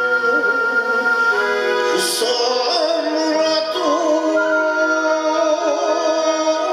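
Gin'ei (shigin) poetry recitation: a voice holding long notes with a slow, wavering vibrato over a steady sustained backing accompaniment. A brief bright splash of sound comes about two seconds in.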